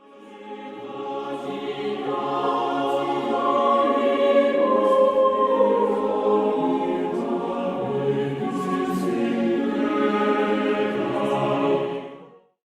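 Choir singing sustained chords, fading in at the start and ending shortly before the end.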